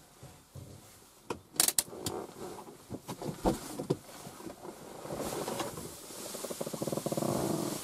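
Inside a parked car: a few sharp clicks and knocks, then a small electric motor in the car buzzing steadily for about three seconds, growing louder toward the end.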